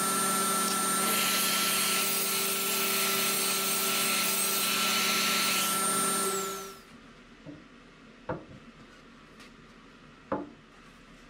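SawStop 3HP cabinet table saw running and ripping a poplar board, with a dust extractor pulling through the blade-guard hose. About seven seconds in the sound cuts off sharply. A few light knocks and clicks follow as a board is handled on a plywood cabinet.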